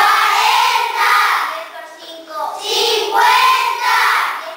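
A class of young schoolchildren chanting a multiplication table aloud in unison in Spanish, two chanted phrases with a short break between them.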